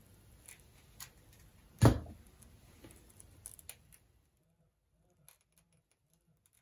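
Small clicks and taps of hand work while soldering a wire onto the loop's terminal, with one sharp knock about two seconds in; after about four seconds only faint ticks remain.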